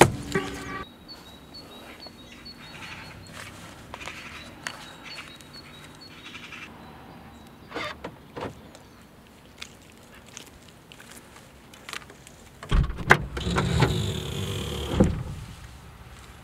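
Škoda Octavia's locks clicking as the car is opened with its remote key fob, then the boot lid's latch clicking open and a couple of seconds of clattering and rustling at the boot, the loudest part, near the end.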